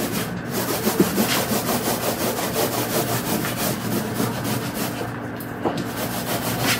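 Paint roller being rolled over a wall: a steady rubbing with a fast, even rhythm.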